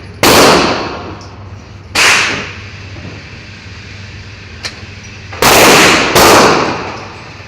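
Four pistol shots, each followed by a long fading echo: two about two seconds apart near the start, then a quicker pair a little over halfway through.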